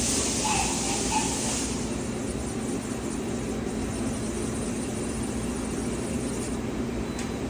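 CNC vertical machining center running under power: a steady machine hum and mechanical running noise, with a hissing spray of air or coolant that stops about two seconds in.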